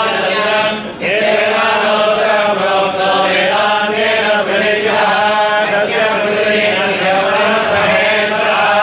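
Voices chanting a temple recitation in a steady, continuous drone of sung syllables, with a brief break about a second in.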